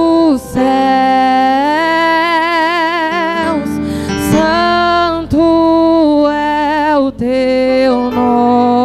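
A woman singing a slow gospel song into a microphone, holding long notes with vibrato and pausing briefly for breath a few times, over electric bass guitar accompaniment.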